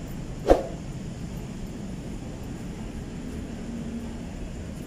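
Steady low background rumble, with one sharp knock about half a second in.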